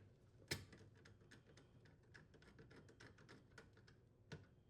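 Faint, irregular light clicks and taps of hand work on metal parts, with two sharper clicks about half a second in and near the end.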